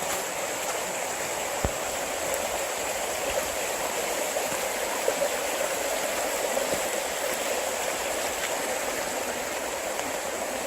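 Spring meltwater runoff flowing steadily, a constant rushing of water, with a few faint knocks.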